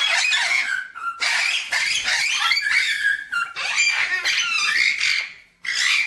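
Red-lored Amazon parrots squawking and chattering loudly over one another in quick, rising and falling calls, pausing briefly about a second in and again near the end.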